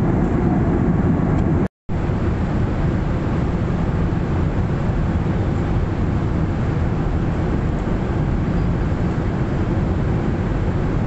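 Steady cabin roar of a Boeing 737-800 airliner in cruise, the engines and rushing airflow blended into one even low rumble. The sound cuts out completely for a moment about two seconds in, then resumes unchanged.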